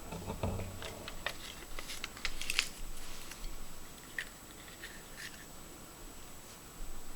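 Close handling of a Kinder Surprise egg's plastic capsule and wrappings: a run of small crinkles and sharp clicks, busiest over the first three seconds with a low bump near the start, then a few scattered ticks.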